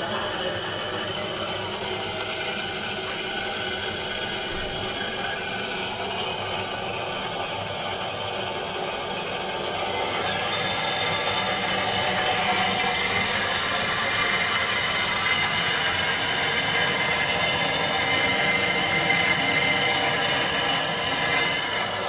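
Water rushing through a just-opened inlet ball valve and supply line into a drained electric water heater tank: a steady hiss as the tank fills.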